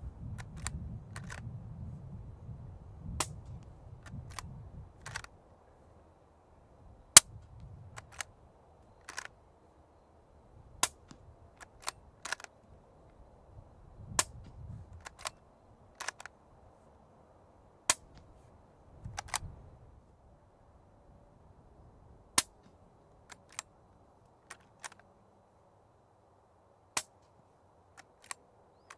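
Suppressed rifle fired with an AB Suppressor Raptor 7.62 can and 220-grain Hush loads. The shots come as sharp, quiet reports spaced a few seconds apart, with lighter clicks between them.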